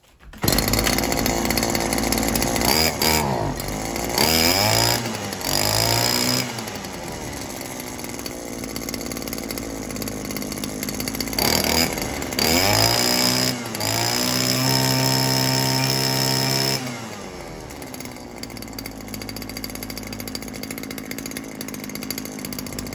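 Oleo-Mac Sparta 25 brushcutter's small two-stroke engine catches about half a second in and idles, test-run after a repair. It is blipped up to high revs several times, and held high for about two seconds past the middle.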